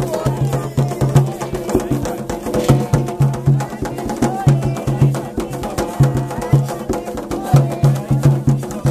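Afro-Brazilian ritual drumming: atabaque hand drums beat a fast, driving rhythm, with sharp clicking percussion on top.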